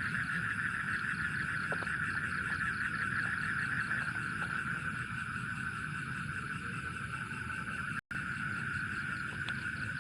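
Steady night chorus of frogs and insects, an unbroken high trilling drone over a low rumble, cut by a split-second dropout about eight seconds in.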